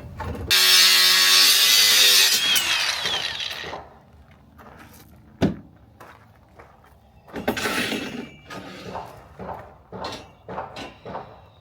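Electric power saw running and cutting through a wooden 2x4 for about three seconds, its motor hum steady under the cutting noise. Later there is a sharp knock, a second shorter burst of saw noise, and scattered knocks of wood being handled.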